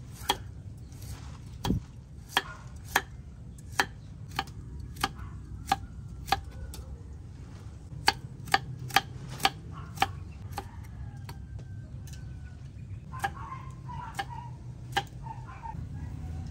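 Chef's knife slicing a carrot into rounds on a thick wooden chopping board, each cut ending in a sharp knock of the blade on the wood. The knocks come about one every half second, quickening to about two a second around the middle.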